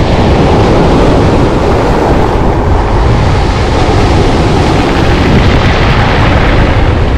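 Sea waves breaking and washing up over a shingle beach, with wind buffeting the microphone: a loud, steady rush with a heavy low rumble.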